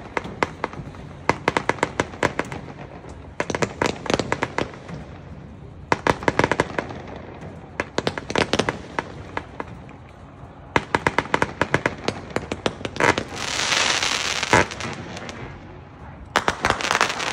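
A 278-shot, 500-gram consumer firework cake firing in repeated rapid volleys of sharp shots and crackles, the volleys a second or two apart. About two-thirds of the way through, a longer hissing crackle sounds as shells break overhead, and a last volley comes near the end.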